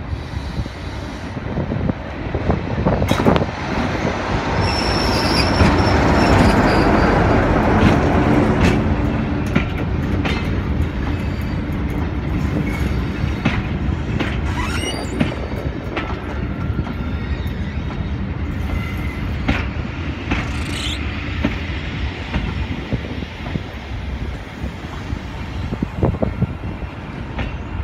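Diesel-hauled passenger train passing slowly at close range. The locomotive's engine and rumble build to their loudest about six to eight seconds in. The coaches then roll by with wheel clicks over the rail joints and a few brief high wheel squeals.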